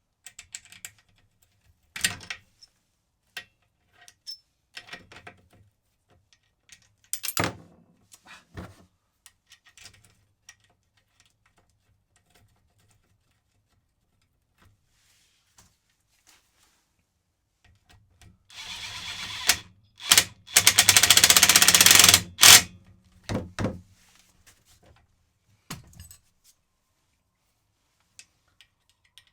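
Scattered clinks and clanks of metal tools and engine parts, then a cordless impact driver running for about four seconds, its rapid hammering loudest near the end of that run, driving in bolts.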